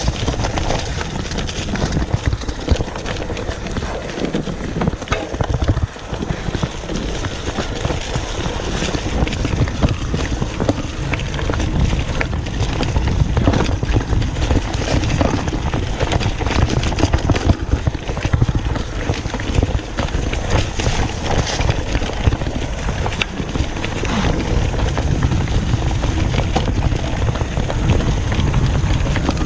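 Mountain bike riding over dirt and leaf-littered singletrack: tyre noise and frequent clicks and knocks from the bike rattling over rough ground, with wind buffeting the microphone as a steady low rumble.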